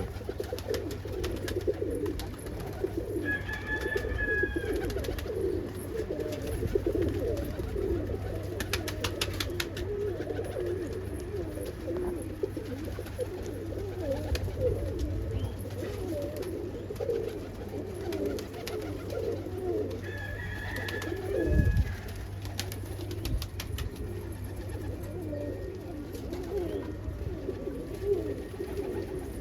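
A flock of domestic pigeons cooing together in a loft, many overlapping coos. A short higher-pitched tone sounds twice, and there is a single thump about 22 seconds in.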